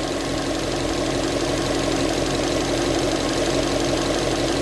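Subaru WRX's flat-four boxer engine idling steadily.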